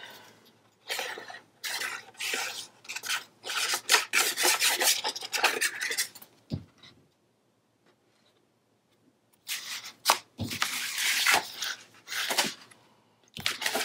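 Sheets of paper and cardstock rustling and rubbing as they are handled, glued and slid across a cutting mat, with a light tap or two. The rustling stops for a couple of seconds midway, then resumes.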